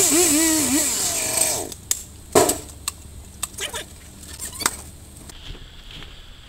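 A Husqvarna chainsaw's small two-stroke engine revving up and down in quick throttle blips, then stopping abruptly about a second and a half in. A few sharp knocks and clicks follow, the loudest about a second later.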